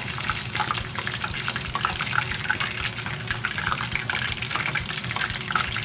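Pieces of karaage (Japanese fried chicken) frying in shallow hot oil in a frying pan, with a steady, dense sizzle and crackle.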